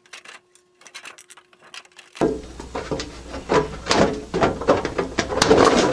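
Hand hole cutter being worked through a thin 24-gauge aluminium sheet: a few faint clicks, then from about two seconds in a busy run of metallic clicks, scraping and rasping as the cutter bites through the metal.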